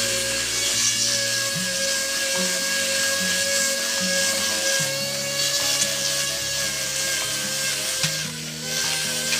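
A handheld electric woodworking power tool whines steadily as it cuts and smooths the face of a curved wooden frame. Background music with a stepping bass line plays along with it.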